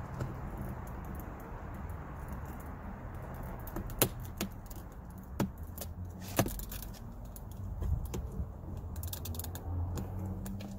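Sharp plastic clicks and snaps from a plastic trim pry tool working the interior door panel trim loose around the door pull of a 2013-2019 Ford Escape: three single clicks a second or so apart, then a quick cluster of clicks near the end, over a steady low hum.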